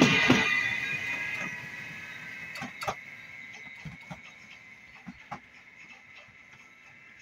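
A Stadler Flirt electric multiple unit pulling away, its running noise fading steadily, with a steady high whine and a few sharp clicks of wheels over the rails.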